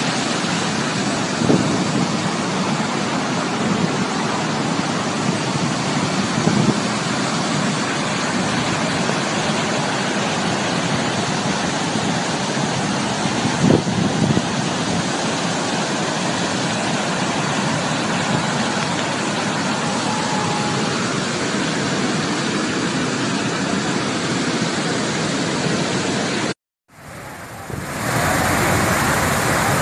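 Floodwater pouring over a dam's overflow wall and churning in the river below: a loud, steady rush of water. It cuts out for about a second near the end, then resumes.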